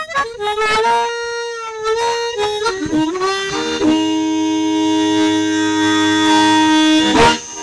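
Harmonica playing: a few notes with a bend about three seconds in, then a long held chord that breaks off about seven seconds in.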